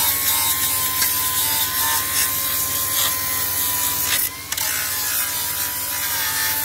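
Facom finger sander with a 40-grit belt grinding a rusty steel chassis rail: a steady high whine over a rasping hiss. The pitch dips briefly about four seconds in, then recovers.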